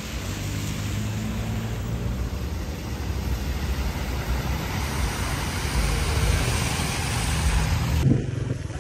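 Road traffic driving through standing floodwater: vehicle engines running under a steady swish of tyres through water, which grows louder through the middle and breaks off suddenly near the end.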